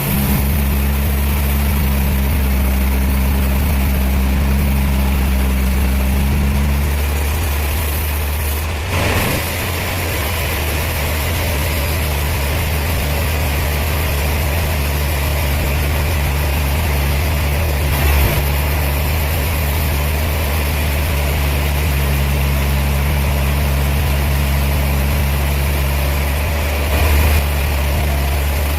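A heavy engine running steadily at an even speed, with a short knock about every nine seconds.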